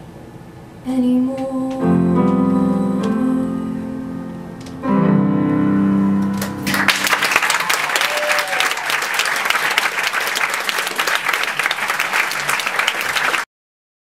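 Piano playing the closing chords of a musical-theatre ballad, struck three times and left to ring out, followed about seven seconds in by an audience applauding. The applause cuts off abruptly near the end.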